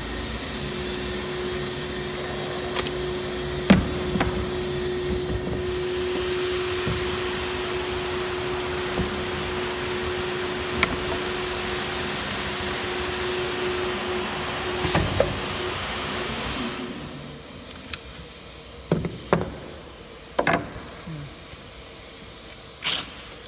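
CNC router's vacuum hold-down pump running with a steady hum and hiss, then switching off about seventeen seconds in. Scattered knocks and clatter come from the cut MDF panels being lifted and handled on the table, with a few sharp knocks after the pump stops.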